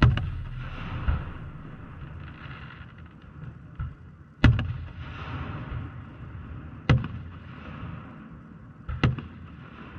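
Aerial firework shells bursting one after another: a loud bang right at the start, then loud bangs about 4.5, 7 and 9 seconds in, with smaller ones between, each trailing off in a long rumble.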